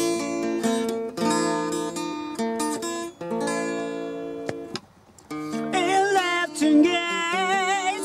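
Acoustic guitar strummed, its chords ringing, with a brief break about five seconds in. After the break a voice comes in over the guitar with long, wavering sung notes.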